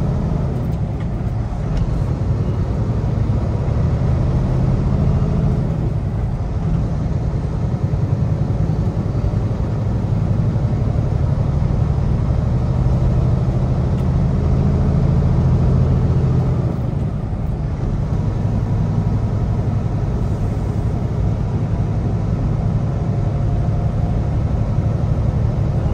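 Kenworth T680 semi-truck's diesel engine and road noise heard from inside the cab while cruising, a steady low drone with brief dips in level about six and seventeen seconds in.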